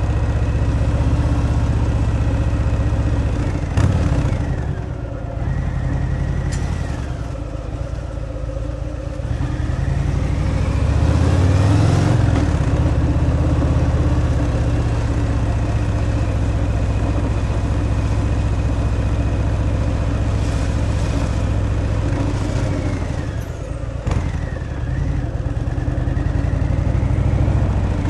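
Harley-Davidson Fat Boy's Milwaukee-Eight 114 V-twin running on its stock exhaust while riding. The engine note drops and climbs back twice as the speed changes, with a few short sharp clicks.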